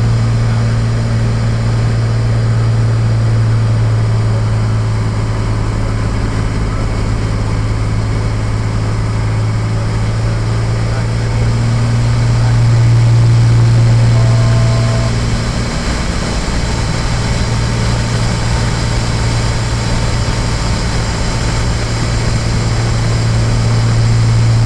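Cessna 182T's six-cylinder Lycoming IO-540 engine and propeller droning steadily in flight, heard inside the cockpit. The drone swells for a few seconds midway as the nose drops in the wingover, eases off briefly, then builds again near the end.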